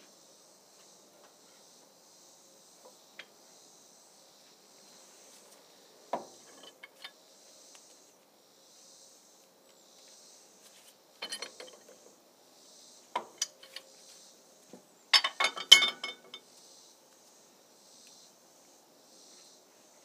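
Scattered metal clinks and knocks of a steel pipe wrench being fitted to a bolt in a hydraulic cylinder pin's flange and worked against it. The loudest run of clanks comes about 15 seconds in. Insects chirr in steady pulses in the background.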